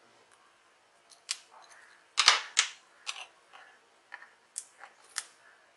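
Utility knife blade and tweezers scraping and clicking against the plastic bottom cover of a laptop while prying up a sticker: a few short, sharp clicks and scrapes at irregular intervals.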